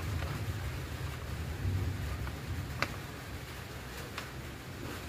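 A few faint, sharp clicks of a steel tube socket wrench against metal as a bolt is worked, over a steady low rumble.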